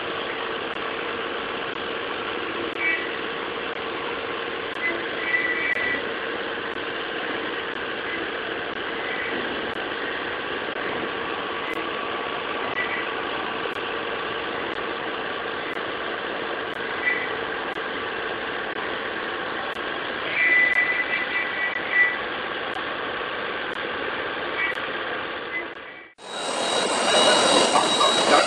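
Five-axis machining center milling a metal workpiece under coolant: steady spindle and cutting noise with a whine, and brief higher squeals from the cutter now and then; the vibration at this speed setting is quite large. Near the end it cuts abruptly to a louder, harsher noise of a CNC carving spindle cutting a statue.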